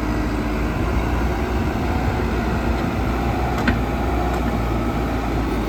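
JCB 3CX backhoe loader's diesel engine idling steadily.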